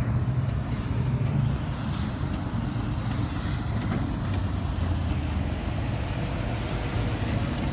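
A vehicle engine running steadily at idle, a low even rumble.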